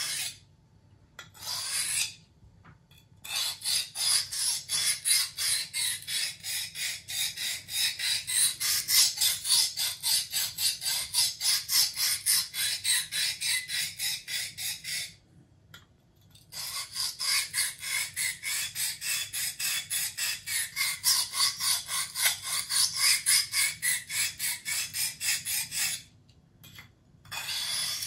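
Steel folding-knife blade of Sandvik 12C27 steel drawn rapidly back and forth across a hand-held two-sided Tyrolit sharpening stone. It makes a quick, even run of short scraping strokes that stop briefly about halfway through and again near the end.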